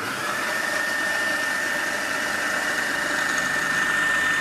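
Magimix Cook Expert food processor motor running at speed, its blade chopping onions, garlic and spices in the bowl: a steady mechanical rush with a high whine.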